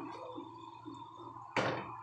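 A single sharp clack of kitchenware about one and a half seconds in, over steady background noise from the stove area.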